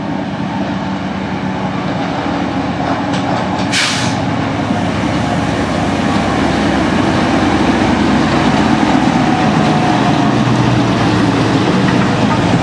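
British Rail Class 04 diesel shunter 04110 approaching slowly and drawing alongside, its Gardner eight-cylinder diesel engine running steadily and getting louder as it nears. A brief hiss about four seconds in.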